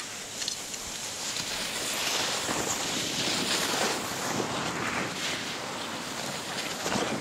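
Skis hissing and scraping over packed snow as the skier turns downhill, swelling and fading in several surges, with wind rushing over the microphone.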